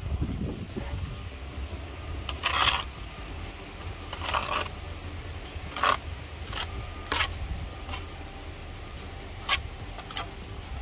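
Steel brick trowel scraping excess mortar off freshly laid bricks and knocking against them: seven short scrapes and clinks spread a second or so apart, two of them longer strokes, over a steady low rumble.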